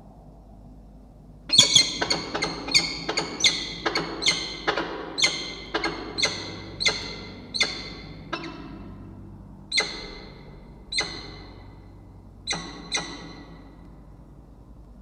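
Peregrine falcons calling during a pair-bonding ledge display. A rapid run of short, sharp calls starts about a second and a half in, then thins out to a few spaced calls near the end.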